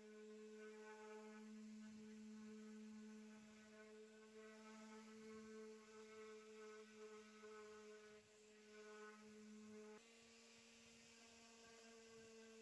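Electric random orbital sander running on a wooden record player case, heard as a faint steady hum with a string of overtones. Its pitch shifts slightly about ten seconds in.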